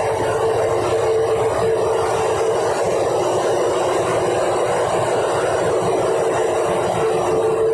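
Steady loud drone of a ship's below-deck machinery and ventilation, a broad rumble and hiss with a steady humming tone over it that weakens mid-way and comes back strongly near the end.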